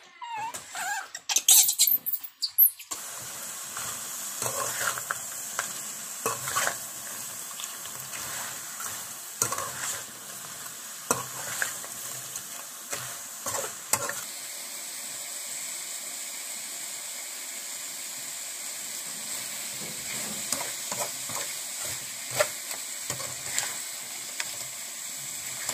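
Small whole crabs stir-frying in a wok, sizzling steadily while a spatula scrapes and knocks against the pan. The spatula strikes come often in the first half and only now and then later. The first few seconds, before the frying, hold a few loud, irregular sounds.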